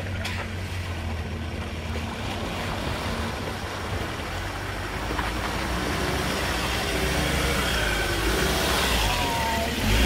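4WD ute's engine and tyres as it drives out of a creek crossing and up a muddy track, a steady low hum that grows louder as it comes closer and passes near the end.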